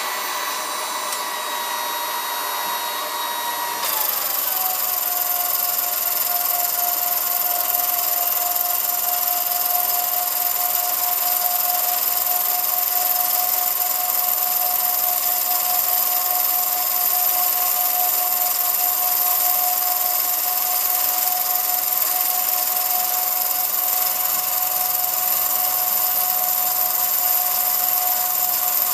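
Home-movie film projector running, its motor giving a steady whine that glides down in pitch about four seconds in and then holds steady.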